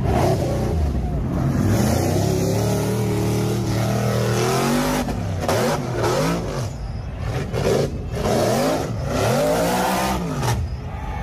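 Off-road buggy engine running hard, then revving up and down in a series of quick surges through the second half, as the buggy's wheels leave the dirt hill climb.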